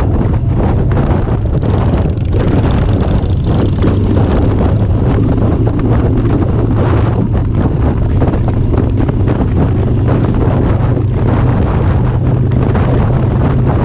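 Wind buffeting the microphone over the steady drone of a Harley-Davidson V-twin motorcycle engine cruising down the road.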